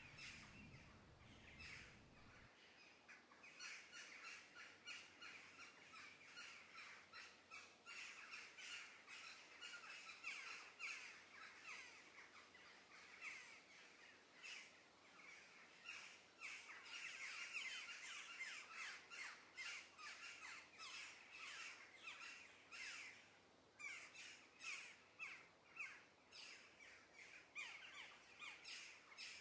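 Faint, rapid, irregular run of short wet scrapes and squelches as a wooden spoon stirs fusilli pasta through a steaming tomato sauce in a pan.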